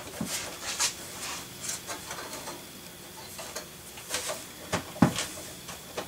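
Scattered light clicks and knocks of a metal desktop PC case being handled on a worktop, with a sharper knock about five seconds in.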